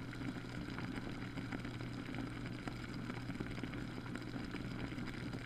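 Humidifier running: a steady low hum with an even hiss over it.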